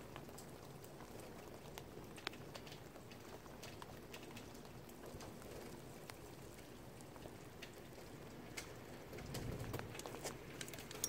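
Faint, irregular small clicks and taps of a hand wrench on a Sprinter diesel engine's injector hold-down bolt as it is slowly turned tight. A low rumble of handling swells near the end.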